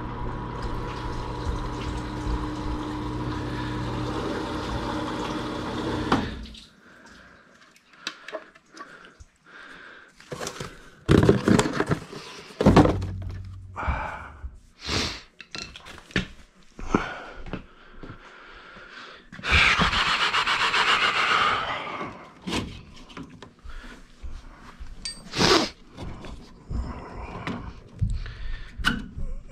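Furnace condensate pump running with a steady hum as it pumps water out, cutting off about six seconds in. Then scattered clunks and clatter of tools and parts being handled, with a couple of seconds of rustling noise about two-thirds of the way through.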